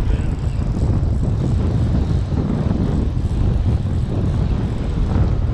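Steady low wind rumble buffeting the microphone over the wash of breaking surf.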